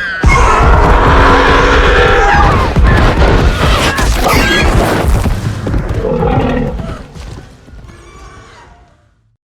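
Brambleboar monster roar, a designed creature sound effect: one long, loud roar with higher pitched layers rising and falling through it, dying away over its last two seconds.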